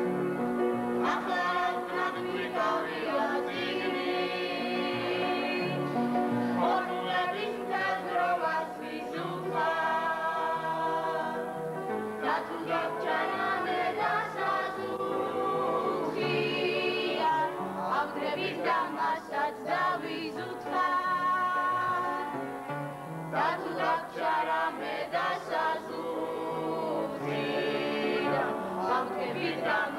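A group of young men and women singing a song together in several voices.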